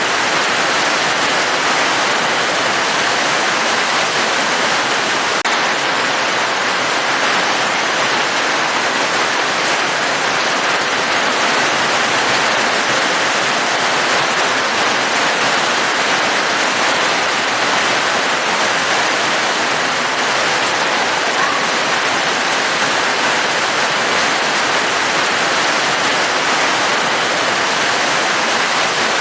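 Steady heavy rain, an even unbroken hiss of falling water with no distinct drops standing out.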